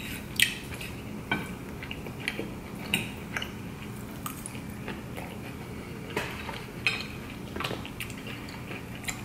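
Metal fork clinking and scraping against a ceramic plate while food is eaten, with about a dozen irregular sharp clicks and some chewing between them.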